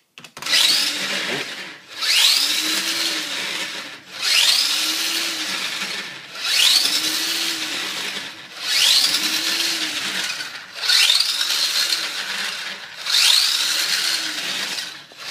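Electric drive motor of a four-wheel-drive RC car spinning its wheels up and back down under a servo test program that cycles the speed controller between full reverse and full forward. Each cycle opens with a rising whine, and the cycles repeat about every two seconds.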